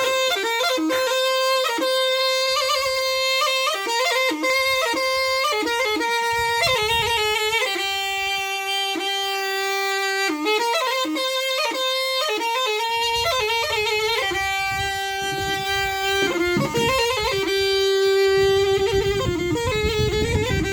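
Zurna, the shrill Turkish double-reed shawm, playing a folk melody: long held notes broken by quick ornamental runs, the held pitch stepping down partway through.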